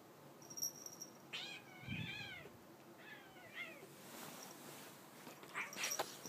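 Two cats wrestling, one meowing twice in short, wavering calls about a second and a half in and again around three seconds in. Near the end comes a brief scuffle of rustling bedding and scratching.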